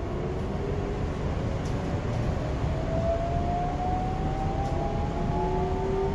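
Electric train accelerating: its traction motors whine in several tones that climb steadily in pitch over the low rumble of the train.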